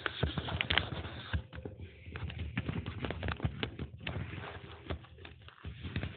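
Cloth rubbing and scraping against the phone's microphone: irregular rustling with dense clicks and knocks, briefly easing about five and a half seconds in.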